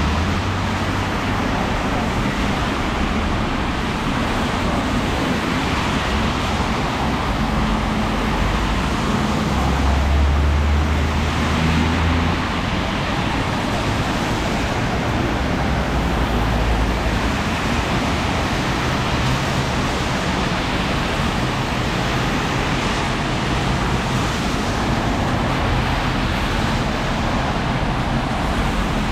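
Steady city traffic on a wet road: a constant hiss of tyres with engines swelling louder as vehicles pass about ten seconds in and again a few seconds later.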